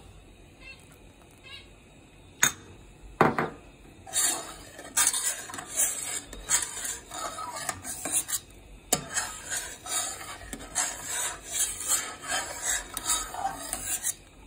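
Metal spatula stirring and scraping against a steel pan of boiling milk that lemon juice is curdling for paneer. Two sharp knocks come about two and a half and three seconds in, then quick, irregular scraping strokes run on.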